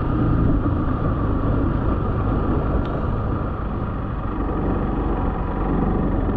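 Motorcycle riding at a steady cruise on a gravel road: the engine runs evenly under a constant rush of road and wind noise.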